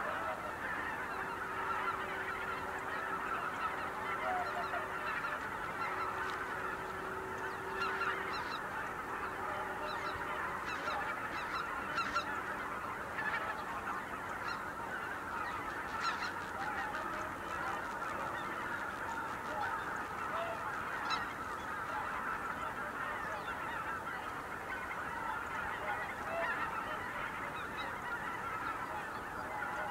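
A huge flock of greater white-fronted geese calling in flight: a dense, continuous chorus of overlapping honks.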